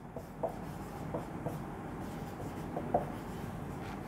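Dry-erase marker writing on a whiteboard: rubbing, squeaky strokes in short bursts as letters are formed, the sharpest squeak about three seconds in.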